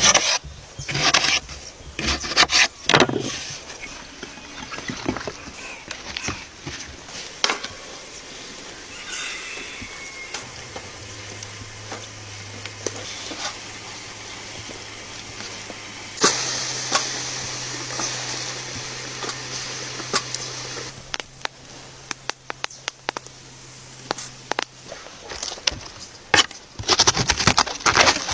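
Kitchen knife sounds on a wooden cutting board: sharp knocks and clicks as tomatoes are sliced. Then, while oyster mushrooms are laid on a wire grill rack over charcoal, there is a steady low hum and, for a few seconds, a bright hiss. Near the end, fast even knife strokes begin as a cabbage is cut.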